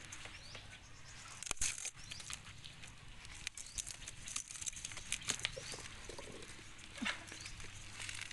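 Dry bamboo leaves and twigs crackling and rustling, with scattered sharp snaps at irregular intervals and a few louder clusters, as someone moves through a bamboo clump.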